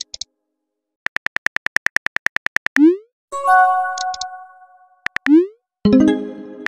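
Phone texting sound effects: a run of rapid keyboard tap clicks, about ten a second, as a message is typed, then a short rising whoosh as it is sent, followed by a chime. Two more taps and another whoosh come near the end, followed by a synthesizer chord.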